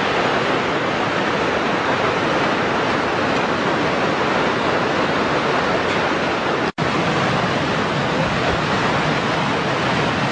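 Iguazu Falls at close range: a loud, steady rush of falling water. It cuts out to silence for an instant about seven seconds in.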